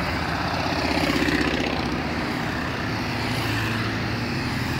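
Motorcycle engines running as a line of motorcycles rides past one after another, the nearest passing closest and loudest about a second in.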